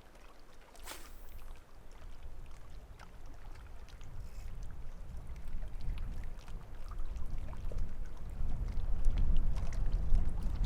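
Wind buffeting the microphone, a low rumble that grows stronger toward the end, with a brief sharp hiss about a second in and scattered faint ticks.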